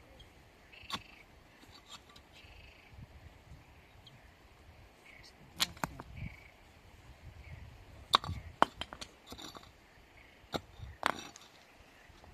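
Irregular sharp knocks and clicks, a dozen or so, loudest about eight seconds in.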